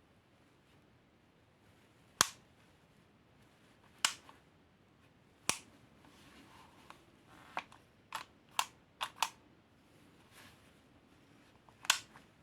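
Sharp mechanical clicks from a spring airsoft pistol, the ASG CZ-75D Compact, being handled and its parts worked. About nine clicks come at uneven intervals, with a quick run of four near the middle.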